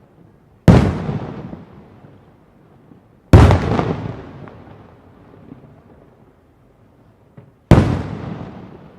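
Three large firework bombs going off, each a single loud boom followed by a rumbling echo that fades over about two seconds, with a small pop just before the third.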